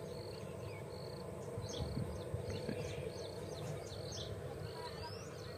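Outdoor ambience by a weedy pond: short high chirps repeating about once or twice a second over a steady low background hum, with a few faint handling rustles about two seconds in.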